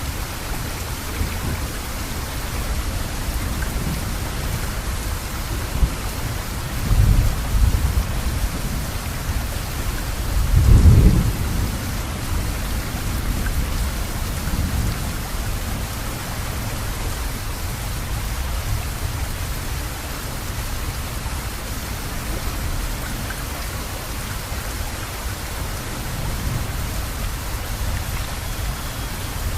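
Steady heavy rain with thunder rumbling low: one roll about seven seconds in and a louder one about eleven seconds in.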